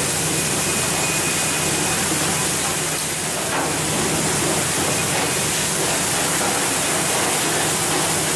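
Steady rushing hiss of water spraying along a fishing boat's hull, over the steady low hum of the boat's engine.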